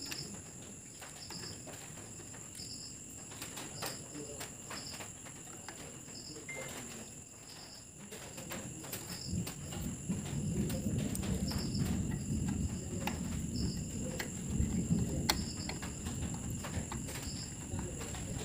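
Soft clicks and rustling from a circuit board being handled and worked with a soldering iron, getting louder about ten seconds in. Behind it, a steady high-pitched whine and a short high chirp repeating about once a second.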